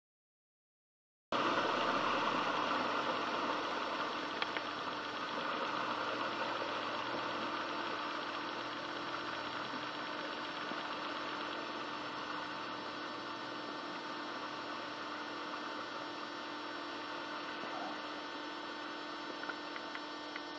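Subaru Forester XT's turbocharged boxer engine running as the car wades slowly through a flooded track, with water sloshing around the wheels. The sound starts abruptly about a second in and fades steadily as the car moves away.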